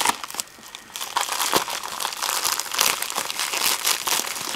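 Plastic poly mailer envelope crinkling and tearing as hands pull it open, its bubble-wrap lining rustling. It goes quieter for a moment just under a second in, then crinkles steadily again.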